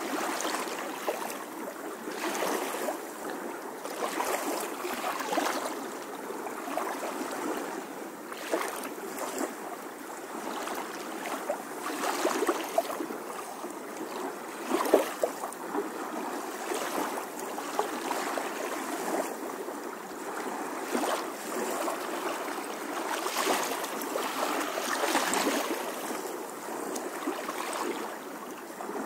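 Swimming-pool water splashing and sloshing close to an action camera, rising and falling unevenly, with a few sharper splashes.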